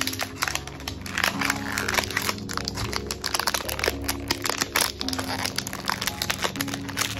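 A plastic wrapper crinkling and crackling as it is peeled off a toy pot, in many quick rustles, over background music with steady held notes.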